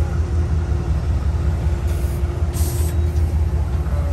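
Amtrak Amfleet passenger coaches rolling past at close range: a steady low rumble of wheels on rail with a faint steady hum. A brief high hiss comes about two and a half seconds in.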